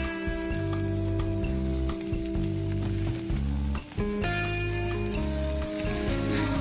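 Pork belly sizzling on a steel mesh grill over an open wood fire, with background music of held chords that change a few times.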